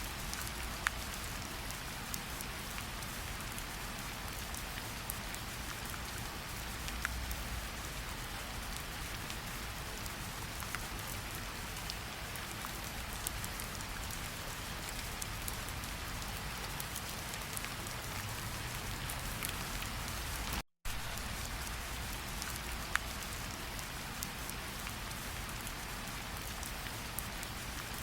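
Steady rain falling, an even hiss with scattered individual drop ticks. The sound cuts out completely for a split second about three-quarters of the way through.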